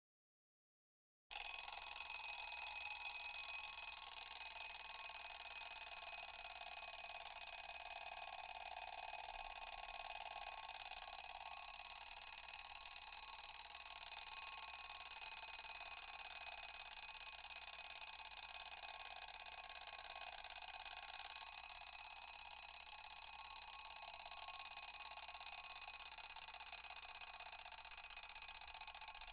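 Alarm ringing continuously, cutting in suddenly out of total silence about a second in: the wake-up alarm that marks the end of a 30-minute nap timer.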